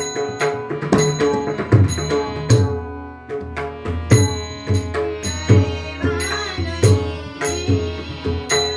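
Harmonium playing a sustained melody while a pakhawaj, a rope-laced two-headed barrel drum struck by hand, keeps a rhythm of sharp strokes under it. This is the instrumental accompaniment of an abhang. The drumming drops out briefly about three seconds in.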